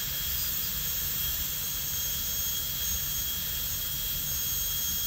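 High-speed air-turbine dental handpiece running with water spray, its bur grinding down the axial walls of a crown prep on a typodont tooth. A steady high-pitched whine over a spray hiss.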